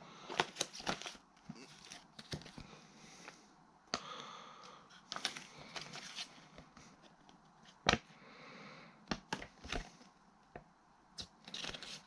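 Quiet handling of product packaging: scattered light clicks, taps and short rustles, with a sharper click about eight seconds in.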